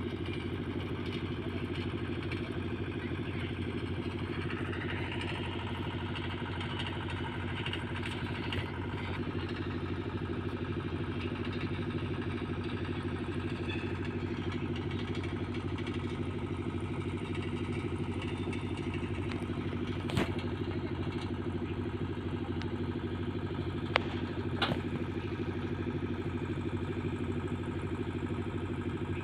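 An engine running steadily at an even speed, with a few sharp clicks in the second half.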